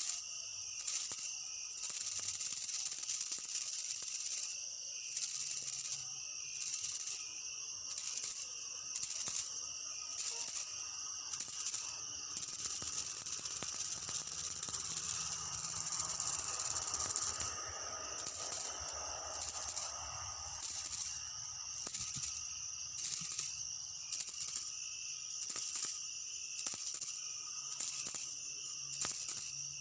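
Insects calling in a high-pitched buzzing chorus that pulses on and off about once a second, with an unbroken stretch of several seconds near the middle.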